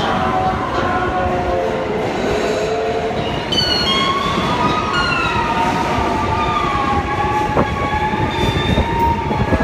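Subway train in motion: a steady rumble under several wavering tones that drift up and down in pitch. The tones grow busier from about three and a half seconds in.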